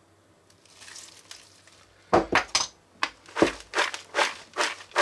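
Popped popcorn dressed with olive oil and Parmesan being tossed in a bowl: after about two quiet seconds, rustling, crunching swishes come in a steady rhythm of about two or three a second.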